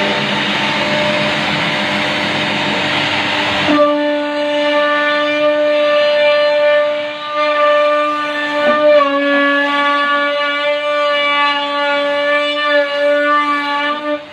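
CNC router spindle running with a steady high whine. A loud rushing noise lies over it for the first few seconds and stops about four seconds in, leaving the spindle's whine alone, which dips briefly in pitch a few times.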